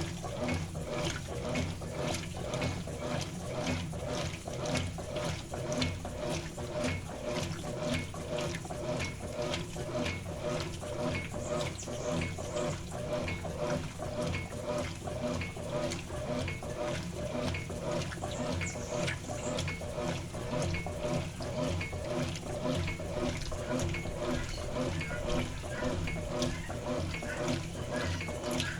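Consul CWS11A 11 kg washing machine in its agitation cycle, its agitator churning water and a load of kitchen cloths in a steady rhythm of about two strokes a second over the hum of the motor.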